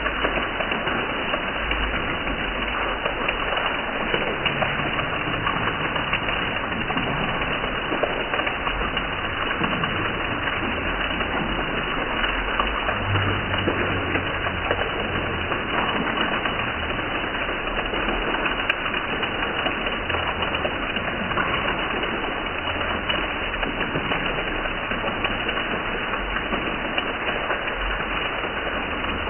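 Heavy rain falling steadily and splashing on concrete steps and paved ground, a dense even patter.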